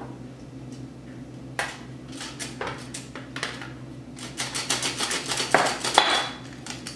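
Metal flour sifter being worked by hand over a plastic mixing bowl while sifting flour. After a short quiet start there is a knock, then the sifter's mechanism rattles in quick clicks that grow dense in the second half, with two louder metallic knocks near the end.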